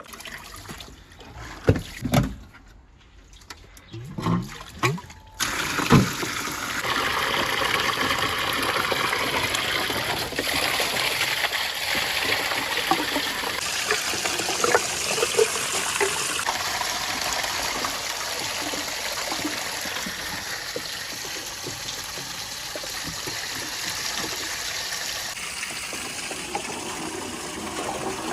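A few sharp knocks, then, about five seconds in, water starts running steadily through a water marble run built of PVC pipe and rain gutters.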